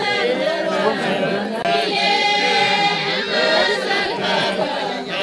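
A group of Maasai villagers chanting and singing together without instruments, many voices overlapping, with some notes held long.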